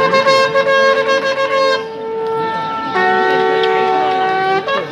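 Conch shells (shankha) blown in long, steady held notes. The sound eases off a little before halfway, then returns with two conches sounding together at different pitches before a brief break near the end.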